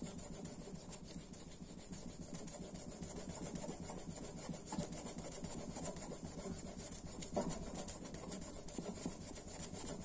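Victorinox knife's translucent plastic scale rubbed back and forth on a strop loaded with polishing paste, a faint steady rubbing and scraping from repeated strokes as the scale is polished.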